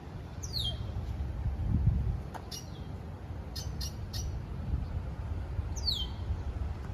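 Birds calling: a few short, high chirps and two quick downward-sliding whistled notes, one near the start and one near the end, over a steady low rumble.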